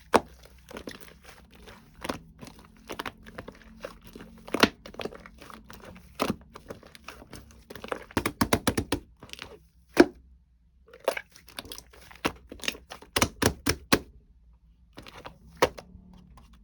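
Irregular taps, clicks and knocks, with a quick run of clicks about eight seconds in, the loudest single knock about ten seconds in, and another cluster of clicks a few seconds later.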